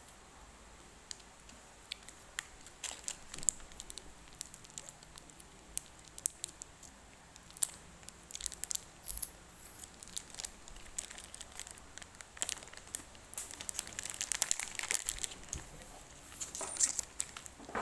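A snack wrapper being crinkled and handled: irregular sharp crackles, sparse at first and coming thick and fast in the last few seconds.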